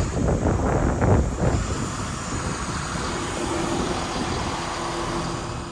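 Excavator running with a steady low rumble, with a few sharp knocks in the first second and a half.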